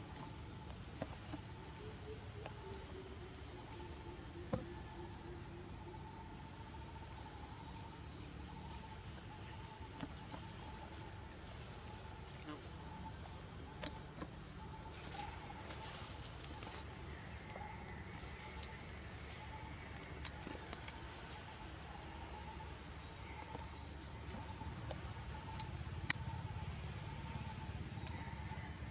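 Steady high-pitched insect chorus that runs without a break, with a fainter, lower pulsing insect call beneath it and a few scattered small clicks and taps.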